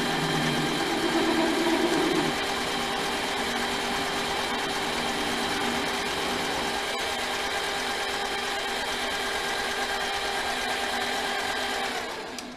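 Benchtop machine tool running with a steady motor whine while taking a cut. The cut is rougher and louder for about the first two seconds, then settles, and the machine shuts off just before the end.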